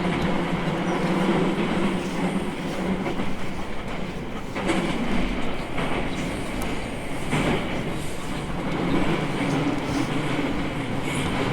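E217 series electric train running at speed, heard from inside the car: a steady loud rumble with a low hum, and a few rail-joint clacks in the middle.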